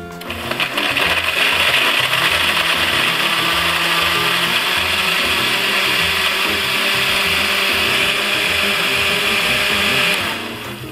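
Oster countertop blender running at speed on a jar of milk, ice cream, banana and ice cubes: a loud, steady whir that builds within the first second and stops near the end.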